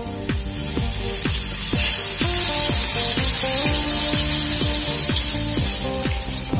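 Flour-coated enoki mushrooms sizzling in hot frying oil as clumps are dropped into the pan; the hiss swells over the first second or two and eases near the end. Background music with a steady beat plays throughout.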